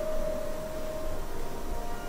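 A single held musical tone with fainter overtones over light room noise, fading out about halfway through.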